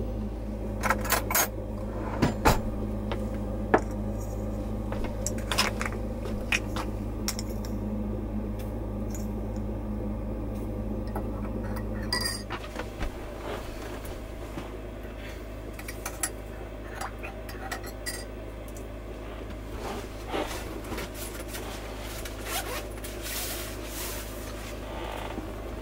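A drinking glass being set down on a wooden counter and a spoon clinking against it as a drink is stirred, a string of separate light clinks and knocks over a steady low hum. Near the end there is a short rustling of a bag being rummaged through.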